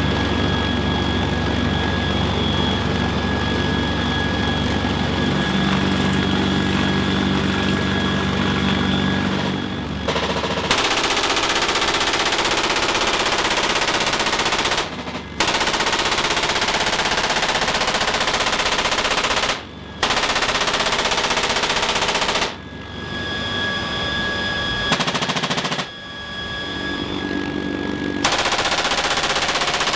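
GAU-21 .50-calibre machine gun firing long sustained bursts from a CH-53K King Stallion helicopter, with the helicopter's steady engine whine and rotor drone underneath. The sound changes abruptly several times as one stretch of firing gives way to another.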